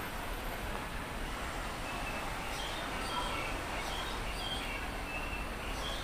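Small birds chirping in short, high notes, repeated several times a second from about two seconds in, over a steady background din.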